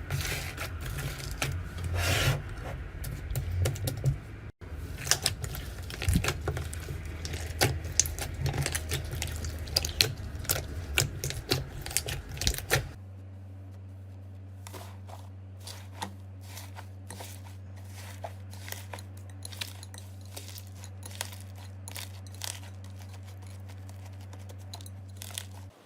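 Slime being squeezed and poked by hand, a steady run of small clicks and crackles. A steady low hum sits under the clicks from about halfway through.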